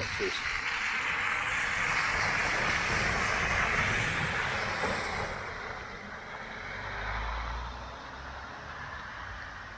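A car driving through deep floodwater on the road, its tyres throwing up a loud rush of spray that peaks a few seconds in and then fades, with heavy rain falling.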